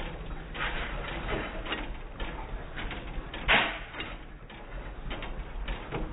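United hit-and-miss gas engine running, its sound slowed down and pitched low along with the slow-motion picture: a run of drawn-out mechanical knocks and clatters, with one louder thump about three and a half seconds in.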